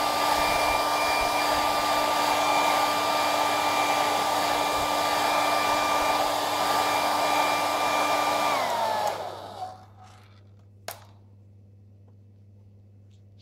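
Handheld hot-air blower running steadily, a rush of air with a steady whine, as it heats knitted fabric to shrink its shrinking yarn. About eight and a half seconds in it is switched off and winds down, the whine falling in pitch as the air dies away, and a single sharp click follows a couple of seconds later.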